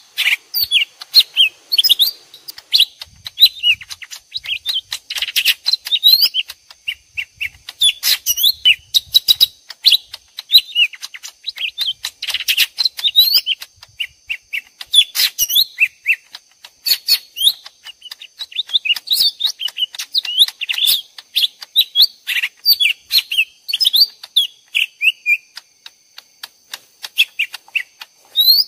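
Two lesser green leafbirds (cucak ijo mini) answering each other in rapid, sharp chirps and twittering phrases, as if fighting, with only brief pauses. The recording is mixed for use as a trapping lure call.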